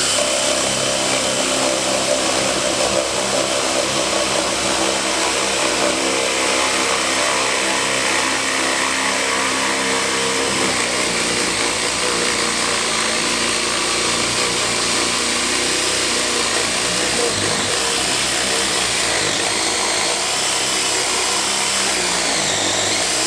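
Cordless hammer drill running continuously under load, boring a spade bit into wood. The motor's pitch drops a little about ten seconds in.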